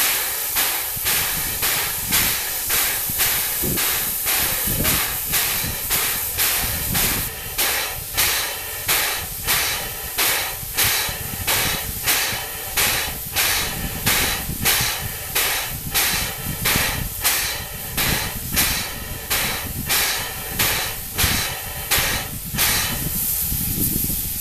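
Steam-driven locomotive air compressor running, its steam exhaust chuffing in an even beat of about two hissing puffs a second. It is pumping into an air tank during its test run, powered by steam from a traction engine.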